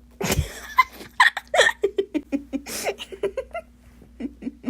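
A person laughing in a run of short bursts that starts suddenly and fades out.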